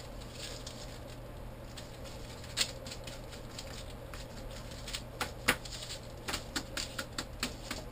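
Hands rubbing and pressing a paper book page down onto wet acrylic paint: soft scratchy paper rustling, with one sharp tap a few seconds in and a quick run of light taps and crinkles in the last few seconds.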